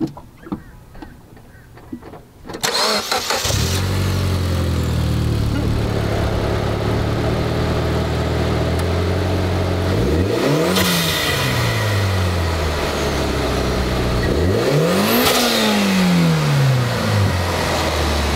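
Mitsubishi Lancer Evolution X's turbocharged 2.0-litre four-cylinder cranking and catching a few seconds in, then settling into a steady idle. It is revved twice, each rev rising and falling back to idle. A few light clicks come before the start.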